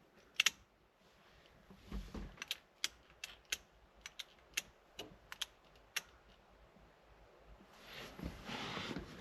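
Faint sharp clicks, about a dozen at uneven spacing, from the Datsun 280Z's light switch being worked to test the newly rewired lights; a rustling sound builds near the end.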